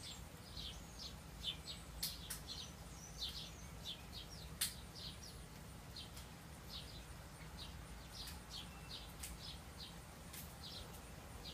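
Small songbird chirping: a faint, irregular run of short high chip notes, two or three a second with brief pauses, and two sharp clicks.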